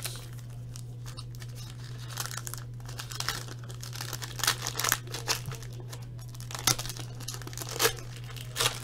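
A box of trading cards being unwrapped: plastic wrapping crinkling and tearing in irregular crackles.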